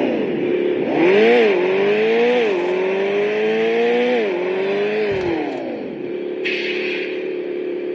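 Simulated car engine sound from an RC car engine-sound module, preset number 4: it idles, is revved up and down several times starting about a second in, then settles back to a steady idle, with a short hiss near the end.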